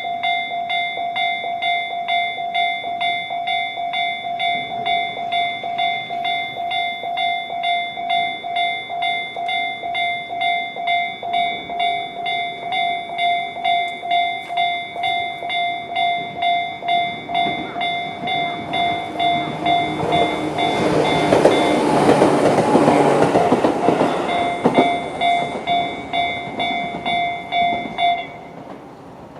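Japanese level-crossing alarm bells in Tobu's 'tone C' ringing steadily at about two strokes a second. A Tobu 10000-series electric train passes over the crossing in the second half, its wheel and body noise swelling to the loudest point and fading. The bells cut off suddenly near the end as the crossing clears.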